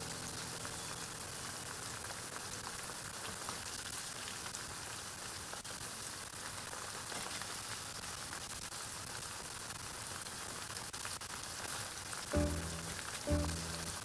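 Flour-coated macaroni deep-frying in hot oil, a steady dense sizzle and crackle. Background music with a beat comes in near the end.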